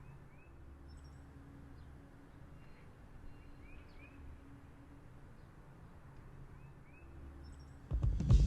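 Faint outdoor ambience with sparse short rising bird chirps, some in pairs, over a low hum that swells and fades in stretches of about a second. Near the end, loud music with a throbbing beat cuts in suddenly.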